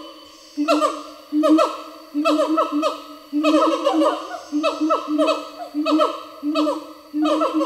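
Siamangs calling in urgent, repeated bouts about once a second, each a held note with quick falling whoops over it: an alarm chorus given at an earthquake.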